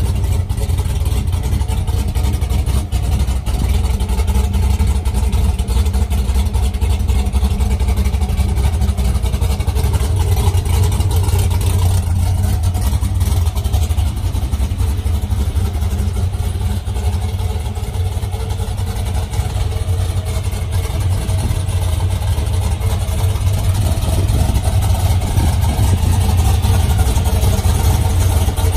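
Built small-block Ford V8 in a 1975 Ford F100 idling steadily, a loud, deep engine sound with no revving.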